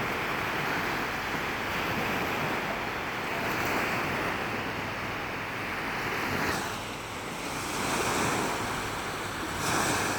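Ocean surf breaking and washing up the beach in a continuous rush that swells and eases every couple of seconds, with some wind on the microphone.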